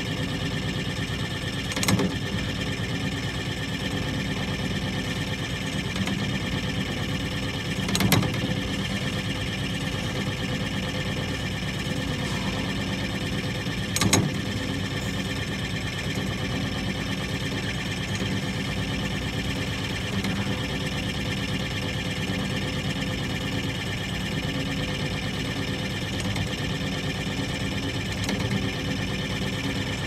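Senjo Seiki snap ring groove deburring machine running, a steady mechanical hum with several steady tones as its toothed tool head turns inside an internally toothed steel ring. Three sharp knocks come about six seconds apart in the first half.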